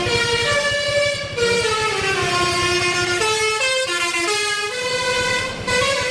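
Tour bus 'telolet' musical horn playing a tune, its notes stepping up and down in pitch every half second or so, with a few sliding notes.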